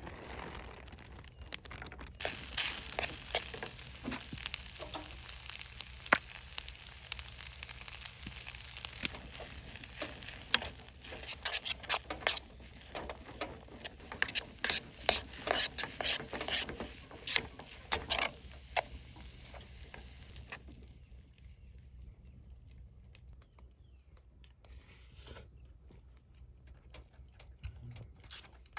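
Food sizzling in a hot pan, a steady hiss with many small spattering pops; the sizzling stops about two-thirds of the way through.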